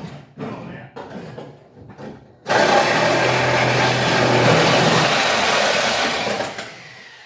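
Handheld power tool cutting through a leftover sliver of sheet metal that still holds the panel. It starts suddenly about two and a half seconds in, runs steadily for about four seconds, then trails off. A few knocks and clatters come before it.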